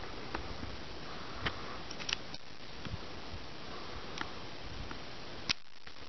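A single sharp crack about five and a half seconds in, then the sound cuts out abruptly for a moment; before it, a few faint ticks over steady outdoor hiss. The crack is most likely the Remington 870 12-gauge shotgun firing birdshot at the frying pan, recorded at a low level.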